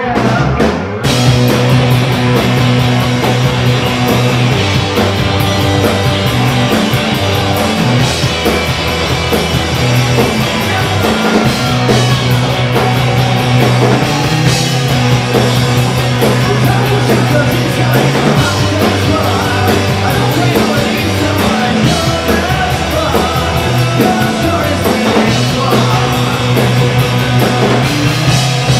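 Live rock band playing loud: electric guitar, bass guitar and drum kit with crashing cymbals, the full band coming in about a second in.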